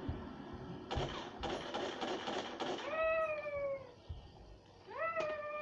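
A cat meowing twice, each meow short and falling in pitch at its end, after a few seconds of noise.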